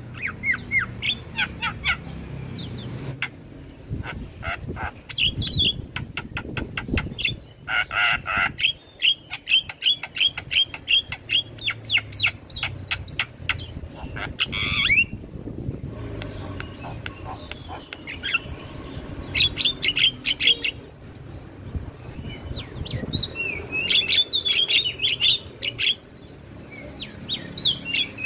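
Javan myna (jalak kebo) singing in bursts: fast runs of clicks and rattling chatter mixed with short whistled notes, broken by brief pauses.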